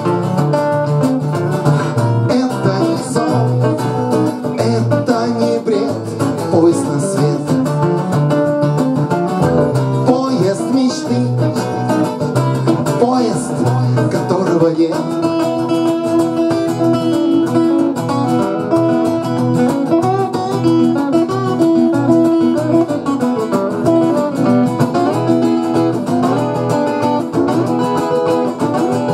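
Two acoustic guitars playing together through an instrumental break of a song, a busy run of notes with some longer held notes in the second half.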